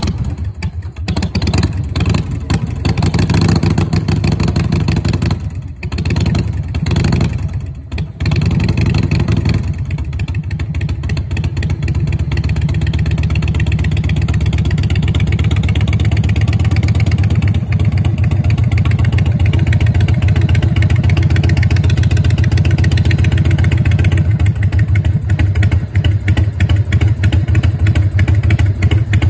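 Harley-Davidson Wide Glide's V-twin engine being test-run: the throttle rises and falls as the bike is ridden slowly, dropping off briefly twice around six and eight seconds in. From about ten seconds in it runs steadily at idle with the bike stopped.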